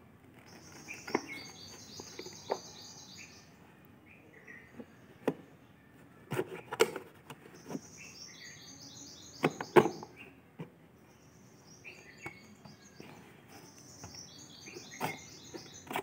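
Hard plastic clicks and knocks from a canister vacuum cleaner's dust-bag holder being lifted and refitted in its compartment, with the motor off; the loudest knocks come about six and ten seconds in. A bird chirps a quick run of high notes three times.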